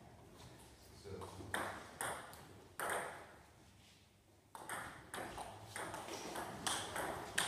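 Table tennis ball being played in a doubles rally: sharp clicks of the celluloid ball striking bats and the table. A few clicks come first, then a short lull, then a steady exchange from about four and a half seconds in, about two clicks a second.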